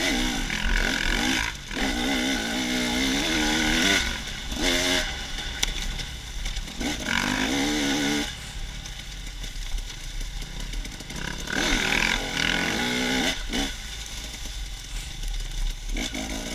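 Off-road dirt bike engines revving in bursts of throttle, their pitch rising and falling as the bikes climb the trail. The engine noise is loudest for the first eight seconds or so, drops back, then picks up again in short bursts about twelve and thirteen seconds in.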